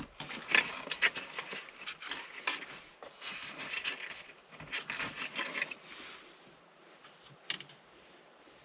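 Small metal parts clicking and scraping as a set screw is handled and fitted into the shift knob's stem, with a run of light clicks that thins out and one sharp click near the end.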